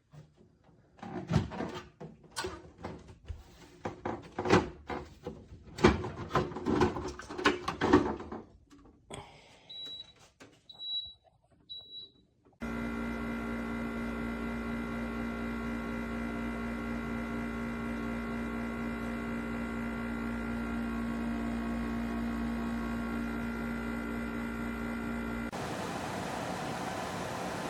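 Frigidaire 50-pint dehumidifier: irregular plastic clicks and knocks, then three short high beeps from its control panel, after which the unit starts running with a steady hum. Near the end the hum gives way to a broader, even rush of fan air.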